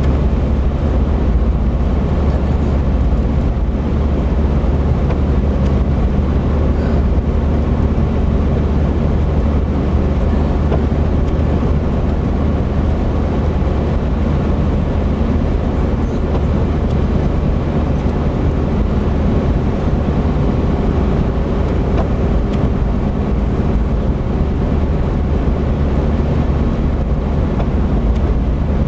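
Steady low rumble of a vehicle's engine and tyres on a wet, slushy road, heard from inside the cabin.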